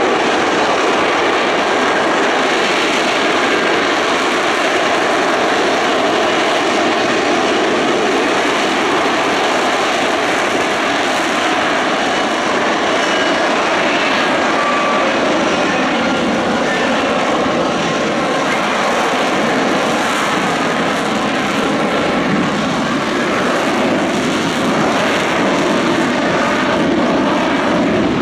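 F-35B Lightning II's Pratt & Whitney F135 jet engine and shaft-driven lift fan running at high thrust in STOVL hover mode, lift-fan doors open: a loud, steady jet noise that holds level throughout.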